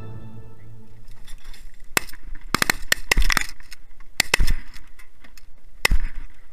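Shotgun shots fired from a goose blind: a quick string of sharp reports and clatter starting about two seconds in, with three heavy blasts about a second apart.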